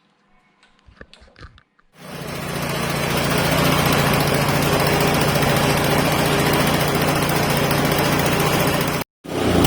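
Haige HGKCM21 snowblower engine starting after a few light clicks: it catches about two seconds in, picks up over a second and settles into a loud, steady run. It is the first start after repair of an engine that would not start and had stood unused for over two years. The sound cuts out briefly near the end and comes back.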